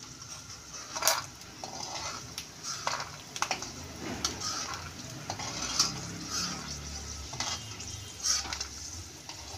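Peanuts sizzling in hot ghee in an aluminium kadhai, fried until they have split open, while a metal slotted spoon scoops them out, scraping and clinking against the pan. The sharp clinks come every second or so over the steady sizzle.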